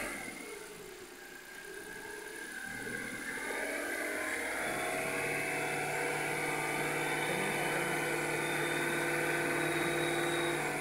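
Mitsubishi Mirage's small petrol engine idling steadily after a jump start from a portable jump starter; the battery had only been drained. The engine hum grows louder over the first four seconds or so, then holds even.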